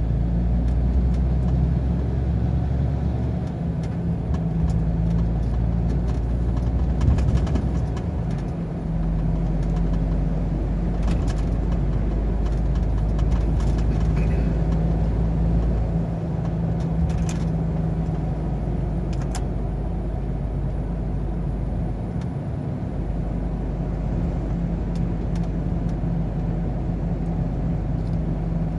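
Truck engine and road noise heard inside the cab while driving at steady speed: a constant low drone, with a few short clicks.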